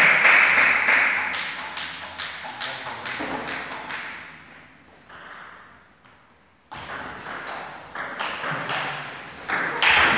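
Table tennis ball clicking off bats and table in short, sharp ticks. The ticks fade to near silence about six seconds in, then start again suddenly as a quick rally of hits, with a brief high squeak just after it starts.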